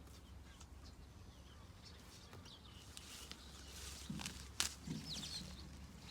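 Faint outdoor sounds of movement and handling: a few light knocks and rustles, with faint bird chirps.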